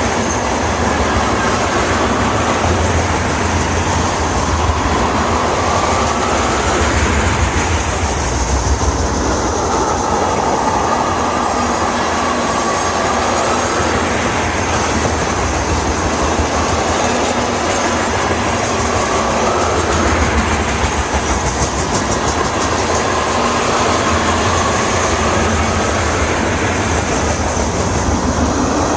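A freight train's cars rolling past close by: a steady loud rumble of wheels on rail with clickety-clack over the joints and a slowly wavering wheel hum.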